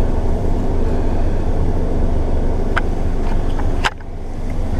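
London bus engine running, a steady low rumble heard from inside the cabin, with two sharp clicks about a second apart near the end.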